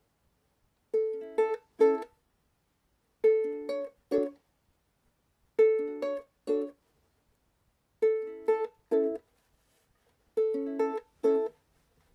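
Background music: a ukulele playing a repeating figure of one ringing chord followed by two short ones, about every two and a half seconds, with brief silences between.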